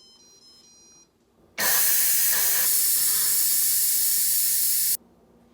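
An electric pressure cooker (Pampered Chef Deluxe Multi-Cooker) gives a short run of electronic beeps, then about a second and a half in its release valve vents steam with a loud, steady hiss that stops suddenly about three seconds later. This is the pressure being let out after the cooking cycle has ended.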